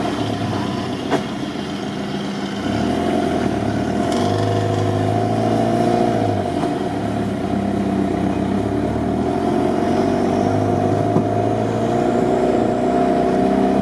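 Engine of a modified UAZ off-roader running steadily as it drives a rutted dirt track, heard up close from its hood; it gets a little louder about three seconds in.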